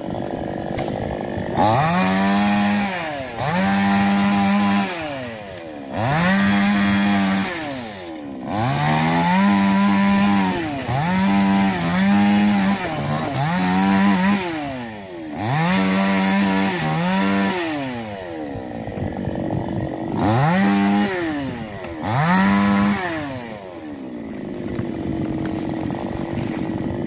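Two-stroke chainsaw cutting into a felled coconut palm trunk. It is revved to full throttle and let back again and again, in bursts of a second or two, then drops back to idle near the end.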